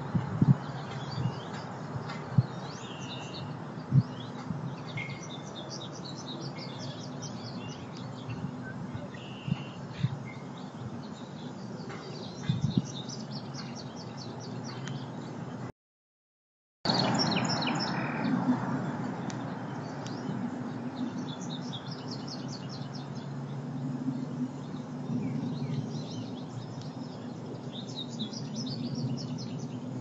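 Small songbirds chirping and twittering in quick, high calls throughout, over a steady low hum. A few low thumps come in the first seconds, and the sound drops out completely for about a second near the middle.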